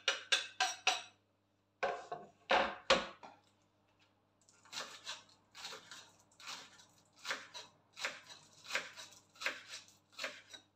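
Kitchen knife chopping green onions on a wooden cutting board, a steady tapping of about two cuts a second through the second half. Before that, a quick run of clinks and scrapes at a mixing bowl and a few louder knocks.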